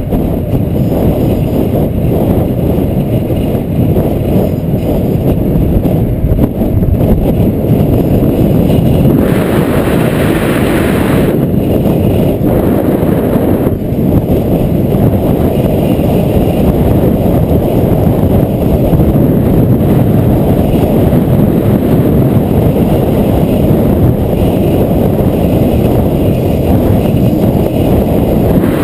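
Wind buffeting the camera's microphone on a fast bicycle descent: a loud, steady rushing rumble, with a brighter hiss for a couple of seconds about a third of the way in.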